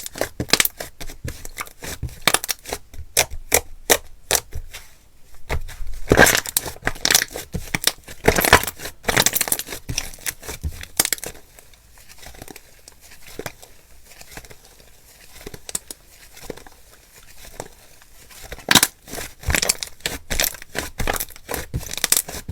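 Slime being worked by hand, squeezed, stretched and poked, giving dense, irregular crackling and popping clicks. It is louder in the first half and again near the end, and softer in the middle.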